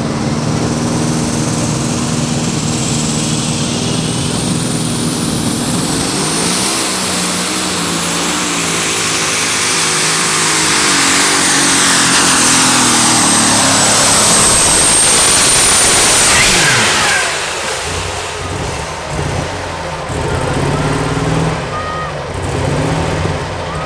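Unlimited super stock pulling tractor's turbocharged diesel engine making a pull: it climbs in pitch about six seconds in and runs loud at full power with a high whistle above it, then the throttle comes off about seventeen seconds in and the engine falls back to a lower, quieter run.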